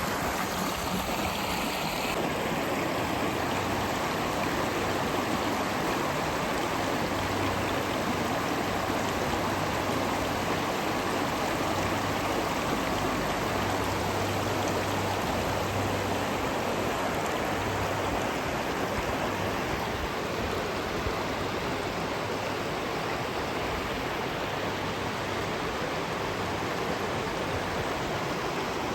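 River water rushing steadily, an even unbroken roar of flowing water.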